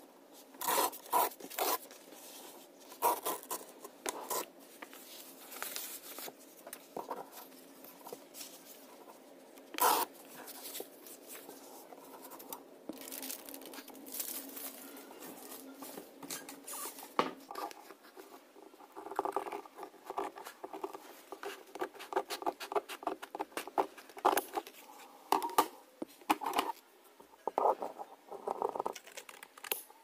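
Sheets of coloured paper and card handled on a table: irregular rustling, sliding and light taps, growing busier and more rapid about two-thirds of the way through.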